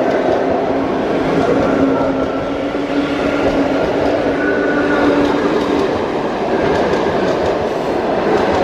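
ED4MKU electric multiple unit pulling away past at close range: a continuous rumble of steel wheels on rail with uneven clatter over the rail joints. Under it runs a low whine from the traction motors, which rises a little in pitch and stops about six seconds in.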